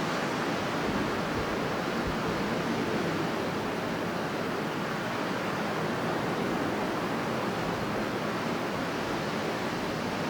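Strong wind blowing in a steady rushing noise, with no gusts standing out and no other events.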